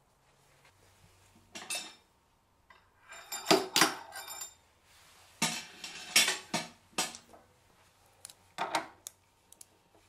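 Steel lathe chuck and fittings clanking and clinking as they are handled and fitted at the lathe's headstock spindle. It comes as a series of sharp metallic knocks with brief ringing, loudest about a third of the way in and again just past the middle.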